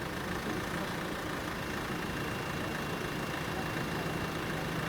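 An engine running steadily as a low hum, with a faint high whine joining about two seconds in.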